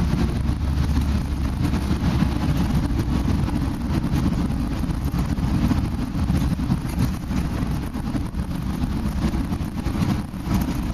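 Shuttle bus driving between stops, heard from inside the passenger cabin: a steady, loud engine and road rumble, heaviest in the low end.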